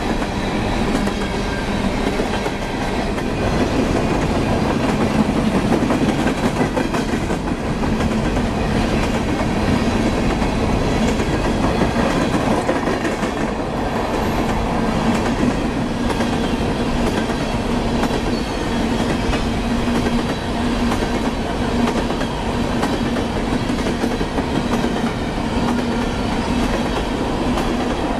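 Loaded freight train of open hopper cars rolling past at speed: a steady, continuous rumble and rattle of steel wheels on the rails, with a low steady drone underneath.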